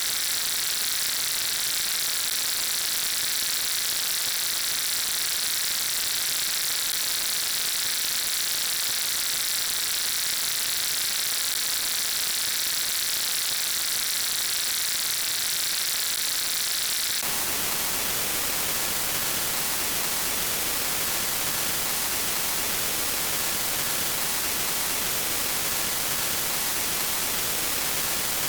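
Steady static hiss, like white noise. About 17 seconds in it changes abruptly to a fuller, rougher hiss with more low end.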